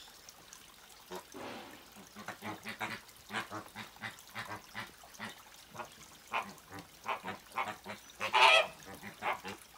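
Flamingos calling: a rapid run of short calls one after another, starting about a second in, with the loudest call near the end.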